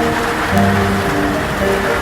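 Slow music of held, changing notes over a steady hiss of heavy rain.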